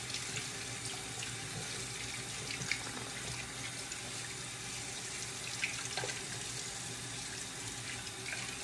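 Kitchen faucet running steadily into the sink while she rinses butter and flour off her hands under it.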